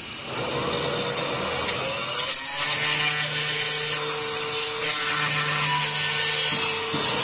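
Horizontal spindle of a CNC horizontal drilling and mortising machine cutting a lock slot into the edge of a wooden door panel. The cutting noise starts just after the beginning and runs on steadily, with a steady low hum joining a couple of seconds in.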